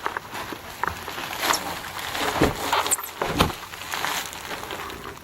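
Knocks, scrapes and shuffling from a kayak being lifted and handled, with two dull thumps about two and a half and three and a half seconds in.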